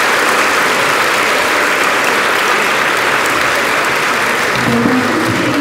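A large audience applauding steadily. Near the end, a voice starts over the clapping.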